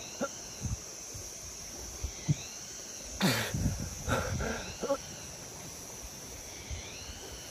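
A man puffing and spluttering as he breathes with his mouth at the water surface, a cluster of loud puffs about three to five seconds in, over a steady high insect drone.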